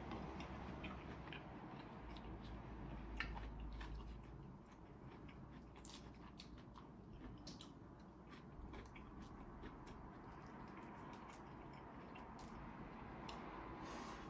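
Quiet close-up eating sounds: chewing of shrimp with scattered soft wet mouth clicks and smacks.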